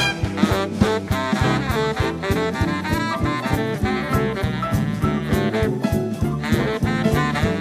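A big band playing swing, with saxophone and brass sections over a rhythm section of drums, bass, piano and guitar keeping a steady beat.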